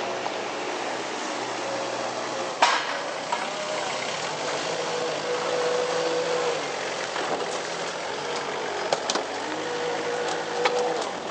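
Compact forklift loader's engine running, with a steady whine that comes and goes as it works. A sharp knock about two and a half seconds in, and a few lighter clicks near the end.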